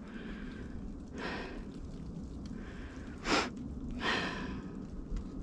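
A few short breathy exhales and sniffs from a person walking, faint against the outdoor background, the sharpest about three seconds in.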